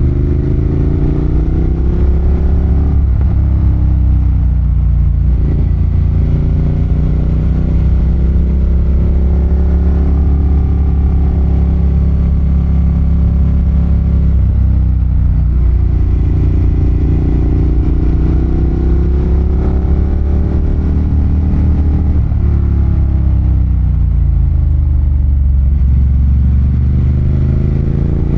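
Ducati Monster 1200's L-twin engine under way, its revs climbing under throttle and falling back again several times, as it accelerates out of corners and slows into them.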